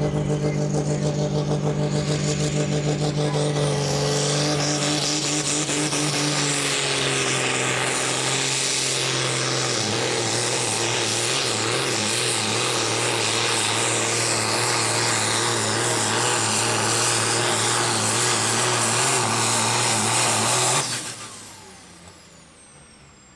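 Diesel engine of an International pulling tractor running flat out under heavy load as it drags a weight-transfer sled. Its pitch sinks gradually over the first ten seconds as the sled's load builds, then holds steady. About 21 seconds in the engine is cut off abruptly, and the sound falls away.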